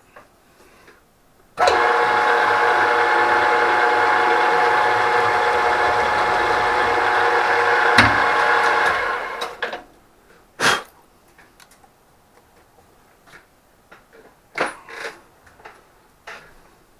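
A workshop machine-tool motor starts up and runs steadily for about seven seconds, then winds down. Scattered light knocks and clicks of metal parts being handled follow.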